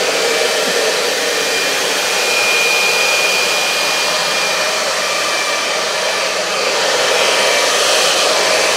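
Handheld hair dryer running steadily while blow-drying hair: a loud, even rush of air with a thin high whine in it.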